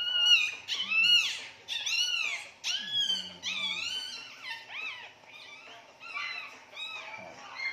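Few-day-old miniature pinscher puppy crying in a quick series of high, arching squeals, about two a second, loudest in the first few seconds and weaker toward the end. It is crying in pain just after its tail has been docked, while the cut is dabbed with cotton.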